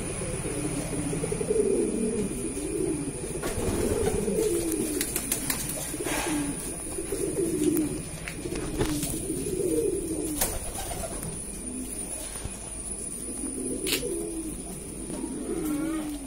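Pouter pigeons cooing again and again, a run of low, rolling coos one after another, with a few sharp clicks and taps in between.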